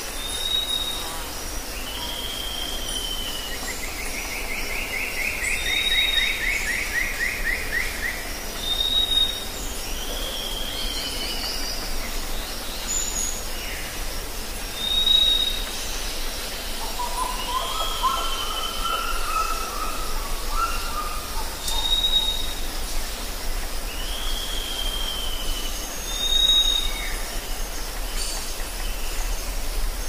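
A rainforest chorus of several birds calling. A short high whistled note repeats every few seconds among down-slurred calls, with a fast trill about five seconds in and a lower warbling phrase near the middle, all over a steady high hiss of insects.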